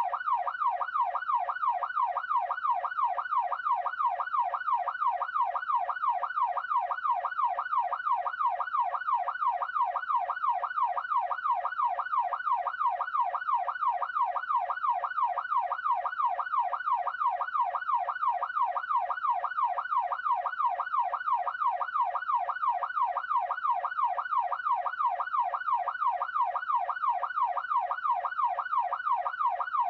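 Police siren wailing in a fast yelp, its pitch sweeping rapidly and evenly up and down in an unbroken, steady cycle.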